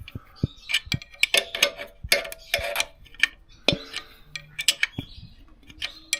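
Ratchet wrench clicking in short, irregular runs as the alternator mounting bolts are tightened, with sharp metal clicks and clinks of the tool.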